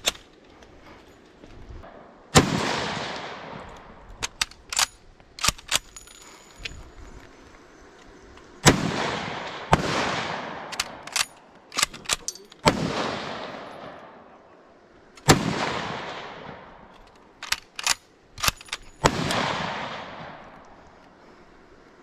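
Finnish M91 Mosin-Nagant bolt-action rifle fired about five times, several seconds apart. Each shot has a long, rolling echo, and quick metallic clicks come between shots as the bolt is worked.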